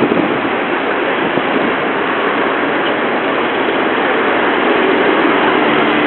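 Steady street noise of road traffic and crowds beside a busy station, blended into an even hiss through a mobile phone's microphone.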